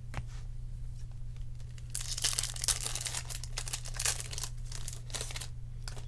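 Silver wrapper of a 2020 Bowman Sapphire baseball card pack being torn open and crinkled by hand, starting about two seconds in and lasting a few seconds, over a steady low hum.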